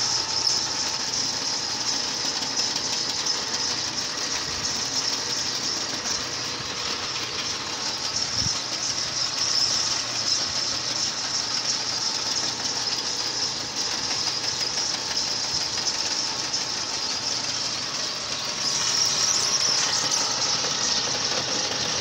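Belt-driven clay mixing machine running steadily as it works wet clay for flower pots and stoves, a continuous mechanical noise with a steady hiss, a little louder about three seconds before the end.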